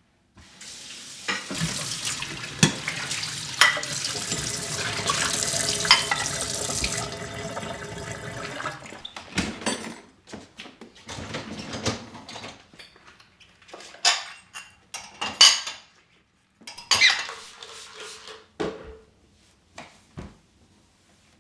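Water running from a tap into a sink for several seconds and then shut off, followed by scattered clinks and knocks of dishes.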